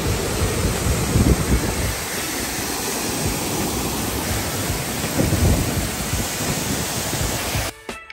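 Waterfall rushing: water cascading over rock and pouring into a plunge pool, a loud steady roar of water that cuts off abruptly near the end.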